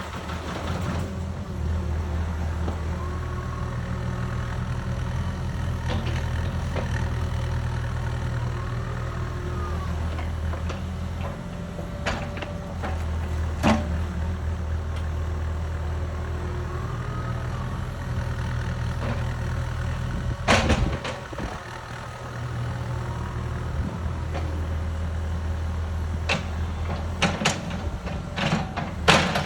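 Cat 305 mini excavator's diesel engine running steadily, its hydraulics whining up and down as the arm works, with a few sharp knocks and clunks, the loudest about two-thirds of the way through and near the end.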